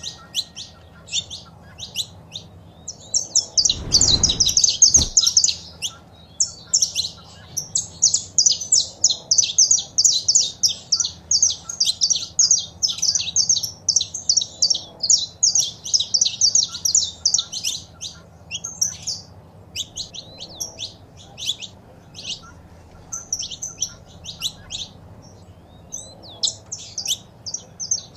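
Saffron finch song: long runs of rapid, high chirping notes, densest in the first half and thinning into scattered notes later. A brief low rumble sounds about four seconds in.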